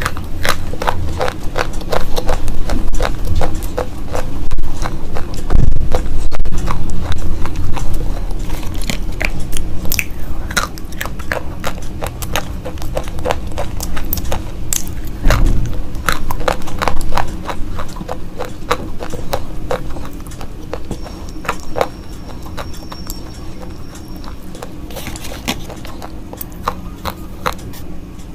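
Slate pencils being bitten and chewed close to the microphone: a steady run of sharp, dry crunches and snaps, busiest in the first half.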